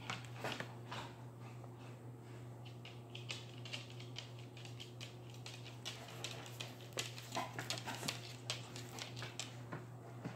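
Cats pawing and scrabbling at a thin cardboard box, an irregular run of light scratches, taps and scrapes that grows busier in the second half, over a steady low hum.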